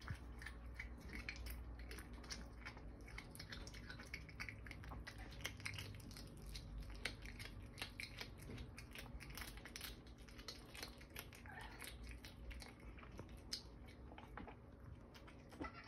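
A cat chewing a whole thawed raw mouse: faint, irregular crunching and clicking as its teeth work through the prey, several crunches a second, a little sparser in the last few seconds.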